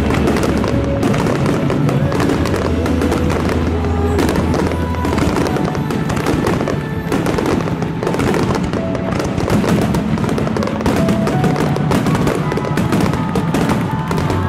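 A starmine fireworks barrage, with shells bursting in a dense, rapid stream of bangs and crackles over steady music.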